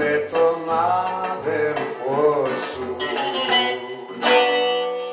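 Greek popular song playing from a 45 rpm vinyl record on a turntable: a plucked-string instrumental passage with bending notes, then a final chord a little past four seconds in that rings on and starts to fade as the song ends.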